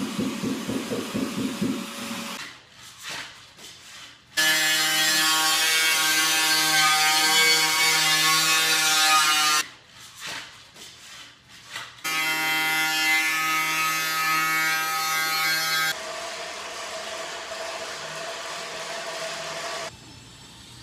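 Power-tool construction noise: rapid even pulsing for the first two seconds, then a tool running with a steady whine in two long bursts of about five and four seconds, followed by a lower steady run that drops away near the end.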